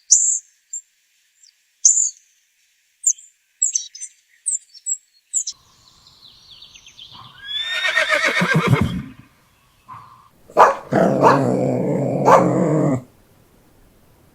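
A few short, high chirps, then a horse whinnying once: a loud call that falls steeply in pitch. About two seconds later comes a second, lower call with a steady pitch, lasting about two seconds.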